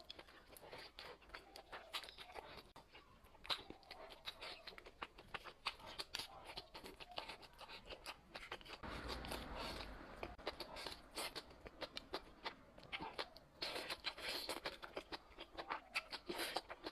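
Close-miked eating sounds: chewing with many small irregular crunches and wet mouth clicks, and a longer, noisier stretch about nine seconds in.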